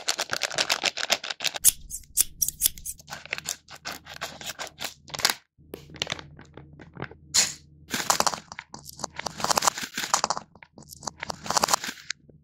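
Plastic candy pouch crinkling and tearing as it is opened and handled by hand, in a series of crackly bursts with short pauses.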